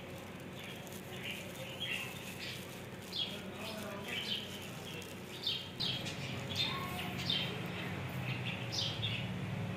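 Small birds chirping again and again, quick high chirps that drop in pitch, over a steady low hum.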